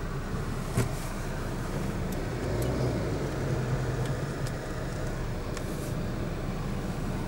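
Steady road noise heard from inside a moving car: a low rumble of engine and tyres, with a louder engine drone from a truck close by in the middle. A single sharp click sounds about a second in.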